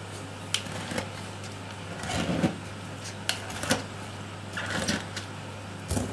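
A wooden stick jabbed repeatedly into wet, fermenting shredded cabbage in a plastic bucket, giving short separate squelching pokes and clicks. The holes let the fermentation gas escape. A steady low hum runs underneath.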